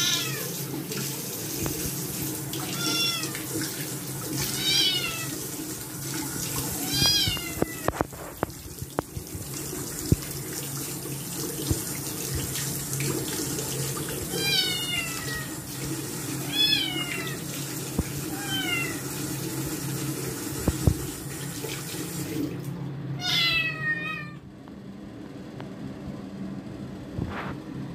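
Scottish Fold kitten meowing loudly and repeatedly, about eight meows each falling in pitch, in protest at being bathed. Under the meows a bathroom sink tap runs steadily, stopping about three-quarters of the way through, with a few sharp knocks in between.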